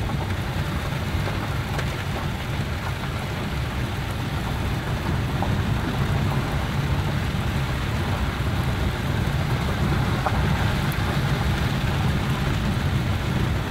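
Heavy rain on the roof and windshield of a moving 4x4, heard from inside the cabin. It makes a steady hiss over the low drone of the engine and tyres.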